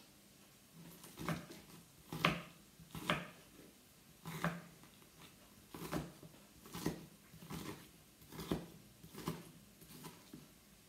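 Kitchen knife cutting squid into rings on a wooden cutting board: a steady series of knocks of the blade against the board, about one every three-quarters of a second, starting about a second in.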